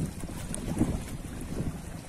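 Ocean waves washing on the shore, with wind buffeting the microphone in uneven low gusts.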